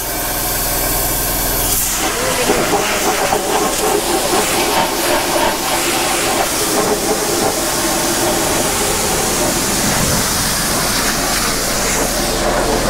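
Pressure washer jet blasting water into a rusty Chrysler 440 cast-iron engine block: a loud, steady hiss of spray hitting the metal and the concrete, which turns rougher and fuller about two seconds in. It is washing rust loosened by electrolysis out of the water jackets.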